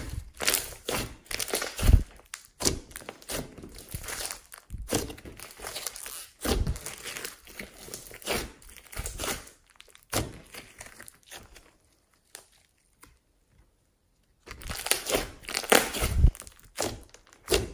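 Hands squeezing, stretching and folding a thick slime studded with foam beads, giving irregular sticky crackles and pops with a few low thumps. The sounds stop for a few seconds past the middle, then start again.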